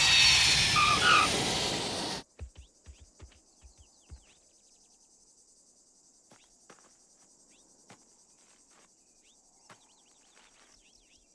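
A jet airliner's engines run loudly for about two seconds, then cut off abruptly. After that, faint steady insect buzzing fills the background, with scattered light ticks and a few bird chirps.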